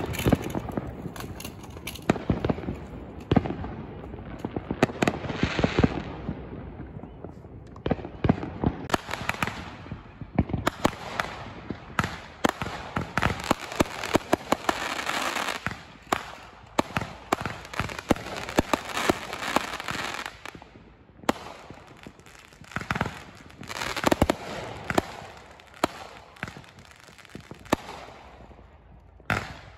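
Aerial fireworks going off in a steady barrage: repeated sharp bangs of bursting shells, close and distant overlapping, with stretches of rapid crackling. The barrage thins out near the end.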